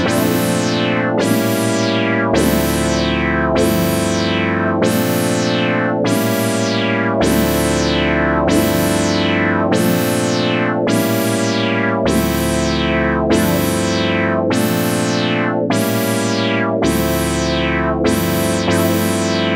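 Clavia Nord Lead 2X synthesizer playing sustained chords recorded straight from its line output. The filter sweeps down from bright to dull about once a second in a steady pulse, and the chord changes about every five seconds.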